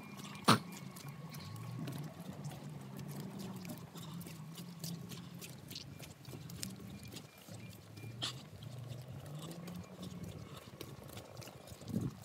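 Footsteps walking on a stony dirt track, with a sharp click about half a second in and another near eight seconds.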